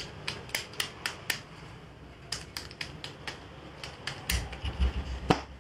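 Sharp clicks of domino playing cards being handled and tapped on the mat, coming in short quick runs of three or four. A low rumble sits under them near the end.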